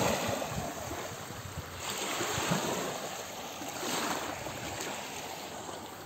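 Small waves lapping and washing over wet sand at the water's edge, swelling and ebbing about every two seconds.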